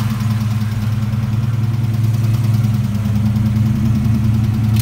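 Fox-body Ford Mustang's 5.0-litre (302) small-block V8 idling steadily, freshly started.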